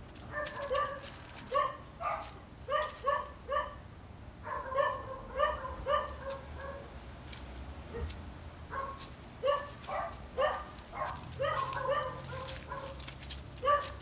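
Dog whining and yipping in short, high calls, coming in quick runs of two to four with brief pauses between.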